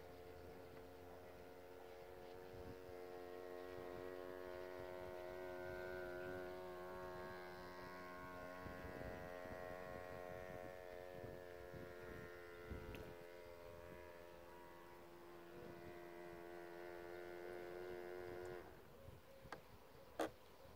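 Electric motor of a radio-controlled model boat running with a steady, faint whine that cuts off abruptly near the end, followed by a couple of sharp clicks.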